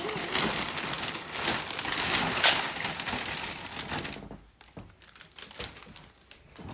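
Dry breakfast cereal crackling and crunching as it is handled, with many small clicks, stopping about four seconds in.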